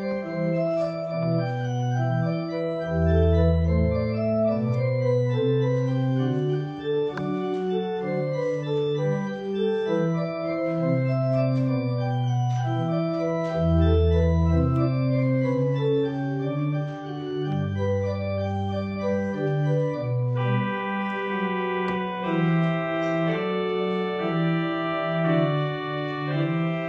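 Organ prelude: sustained chords in several voices moving note to note, with deep pedal notes sounding twice and a brighter, fuller stop added about twenty seconds in.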